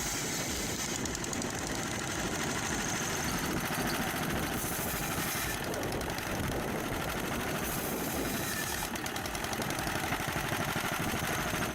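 Engine-driven wood-cutting saw rig running steadily with a fast, even engine pulse. The high end brightens twice, about halfway through and again a few seconds later.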